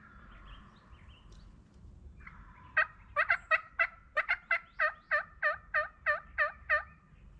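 Turkey yelping: a run of about fifteen evenly spaced yelps, roughly three a second, starting about three seconds in and stopping shortly before the end.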